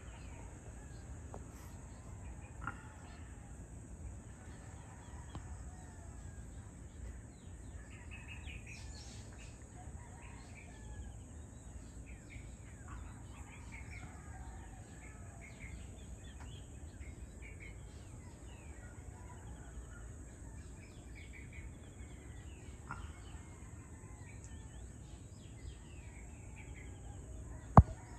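Evening outdoor ambience: many birds chirping and calling in short scattered notes over a low steady background rumble and a constant high-pitched hiss. A single sharp, loud click comes near the end.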